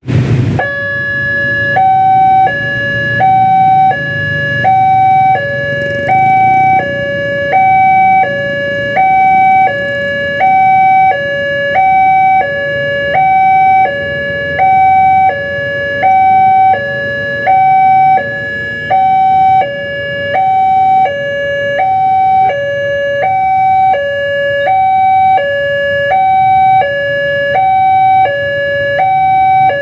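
Two-tone emergency siren alternating between a low and a high pitch, switching about every 0.7 seconds, over a low rumble.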